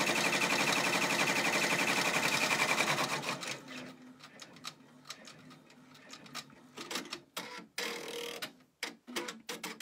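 Brother PR655 six-needle embroidery machine stitching at speed with a fast, even chatter. It stops about three seconds in, and a few scattered clicks follow.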